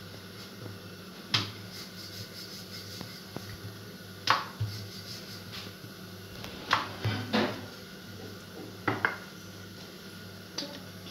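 Rolling pin knocking and clacking against a round rolling board as paratha dough is rolled out, in several sharp separate clacks a second or more apart, over a steady low hum.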